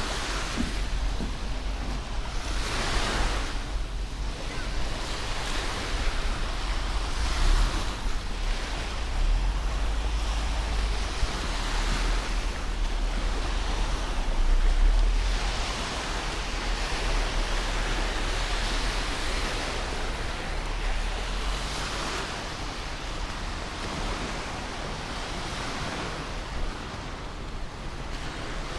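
Mediterranean waves washing onto a beach, the surf swelling and fading every few seconds. Wind rumbles on the microphone underneath, strongest about halfway through.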